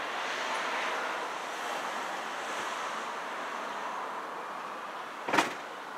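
Steady outdoor rushing noise, with one short, sharp knock a little before the end.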